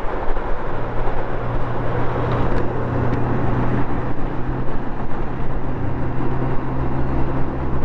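Motorcycle engine running steadily at road speed under heavy wind and road rush. The engine note shifts lower about six seconds in.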